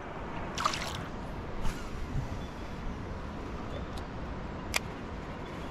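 Shallow river water splashing briefly as a small Australian bass is released by hand, over a steady outdoor hiss. Two sharp clicks come near the end.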